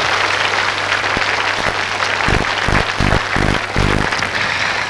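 Studio audience applauding, with music coming in about two seconds in as a run of low bass notes.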